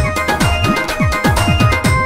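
Instrumental intro music of a Punjabi Christian devotional song: about four low notes a second, each sliding down in pitch, under steady held keyboard tones.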